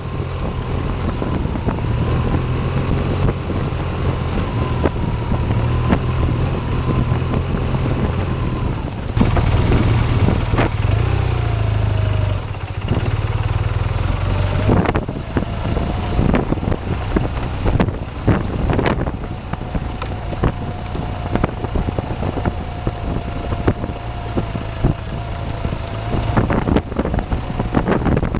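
BMW R 1200 GS boxer-twin engine running steadily while riding off-road, easing off about halfway through, with wind on the microphone and frequent sharp knocks and rattles.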